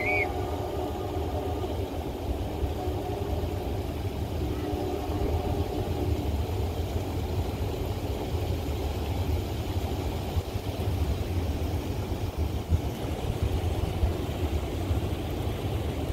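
CSX mixed freight train passing at a distance: a steady low rumble of rolling cars, with a diesel locomotive drone that fades after about six seconds.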